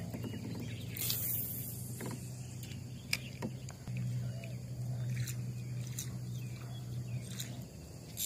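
A spinning rod is cast, the line hissing off the reel about a second in. A steady low hum, a few light clicks and taps follow, the hum louder from about four seconds in.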